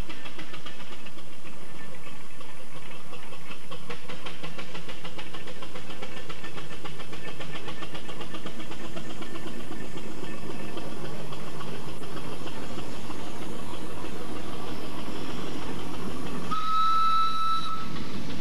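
Steam traction engine working past under load as it hauls a heavy timber wagon, its running a steady rhythmic noise. Near the end its steam whistle gives one short blast of about a second on a single note.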